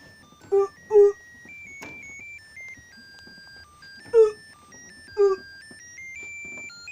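A thin electronic beeping tune of single held notes stepping up and down in pitch, cut through by four short, loud yelps: two close together about half a second and a second in, and two more around four and five seconds in.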